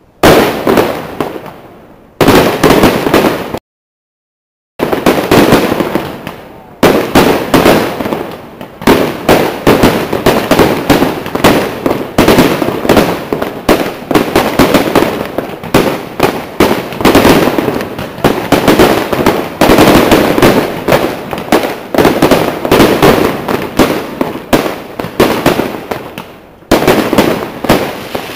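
Fireworks display: aerial shells bursting in a rapid, dense run of bangs and crackles. The sound cuts out completely for about a second near the start.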